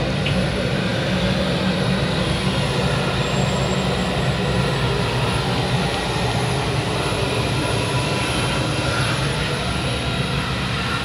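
Steady running noise of an airport apron bus heard from inside the cabin as it drives across the tarmac: a constant low drone with a faint high whine above it.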